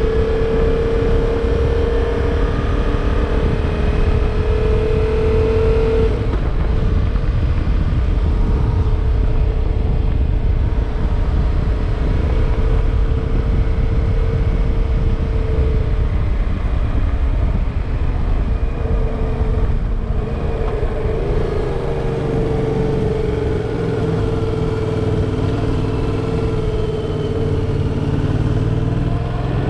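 Motorcycle engine running while riding, with heavy wind and road rumble on the microphone. The engine note changes about six seconds in, and from about two-thirds of the way through a deeper engine note climbs as the wind noise eases.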